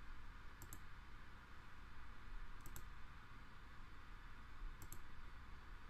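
Computer mouse button clicking: three short double clicks, each a quick press and release, about two seconds apart, over a faint steady hiss.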